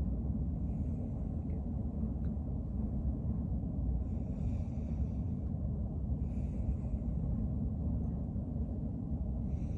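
A person taking slow, deep breaths in and out for a lung check, heard as faint airy hisses that come and go every couple of seconds. A steady low rumble runs underneath and is the loudest sound.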